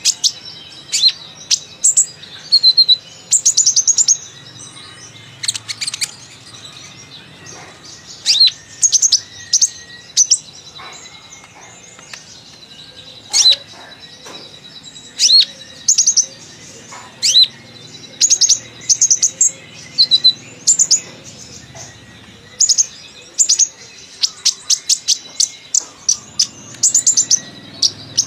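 Kolibri ninja sunbird singing: a chattering run of short, sharp, high notes in quick bursts, repeated again and again with short gaps between.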